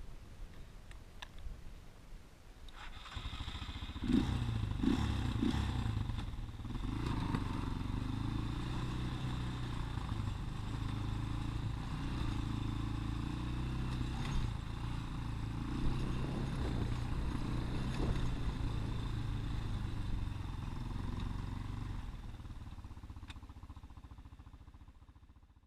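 A 150cc Daymak ATV engine running low and uneven, then revving up about three seconds in and running steadily under throttle with some clatter, before fading away near the end.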